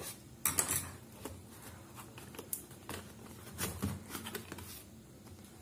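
A pen tip scraping at and breaking the seal sticker on a cardboard product box, with irregular taps, scrapes and rustles of the box being handled.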